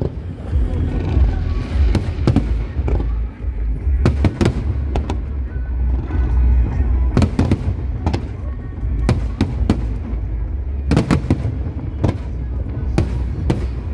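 Aerial firework shells bursting in quick succession: a dozen or more sharp bangs, several in close pairs, over a continuous deep rumble from the show.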